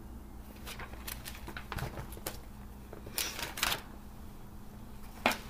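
Glossy magazine paper being handled: a string of short crackles and rustles, a longer rustle about three seconds in, and a sharp tap near the end.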